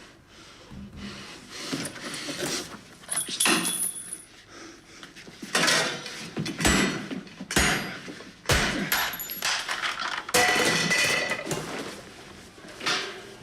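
A run of clattering knocks and thuds with some metallic rattling, spread irregularly over several seconds, the loudest strokes in the middle and later part: the sounds of a struggle among kitchen equipment.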